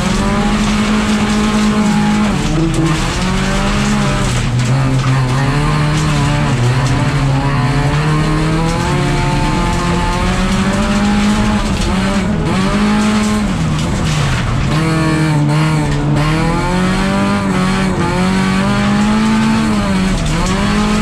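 Rally car engine heard from inside the stripped cabin, running hard under racing load, its revs rising and falling again and again through the run, over steady road and tyre noise.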